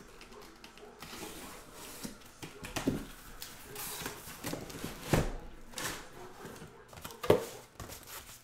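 Corrugated cardboard shipping case being handled and lifted off a stack of boxes: cardboard scraping and rustling, with several sharp knocks, the loudest about seven seconds in.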